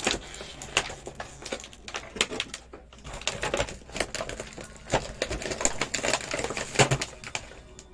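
Small plastic toy accessory pieces being handled and set down: many irregular light clicks and taps.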